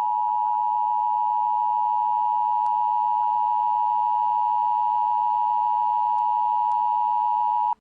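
Emergency Alert System attention signal: a loud, steady two-tone alarm, cut off abruptly near the end. It marks the start of an emergency broadcast.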